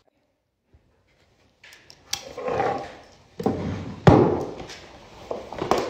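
Near silence for about a second and a half, then a large sheet of heavy Hahnemühle fine art paper rustling and flexing as it is handled on a wooden table, with a sharp knock about two seconds in and a louder thump about four seconds in.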